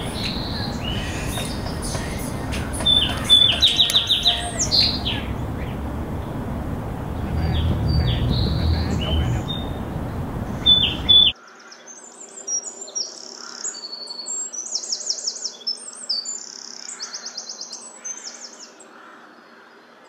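Small songbirds chirping and twittering over steady low background noise. About eleven seconds in, the sound cuts abruptly to a quieter recording of higher, rapid trilled chirps.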